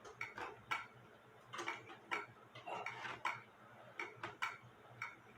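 Faint ticking of mechanical cuckoo clocks, the ticks coming unevenly as several clocks beat at once.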